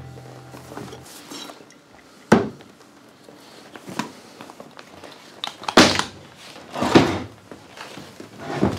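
Several separate dull knocks and thuds in a small room, the loudest about two seconds in and two more near the end, as the last notes of background music fade out in the first second.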